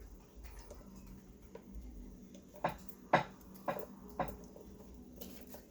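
Four sharp clicks about half a second apart, from the plastic parts of a Black & Decker coffee maker being handled and fitted together, over a faint low hum.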